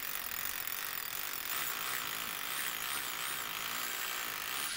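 Corded electric drill running steadily as it bores a hole into a brick wall.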